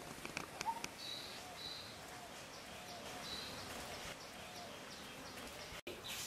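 Outdoor rural ambience with birds chirping on and off, and a few sharp clicks in the first second. The sound cuts out for an instant near the end.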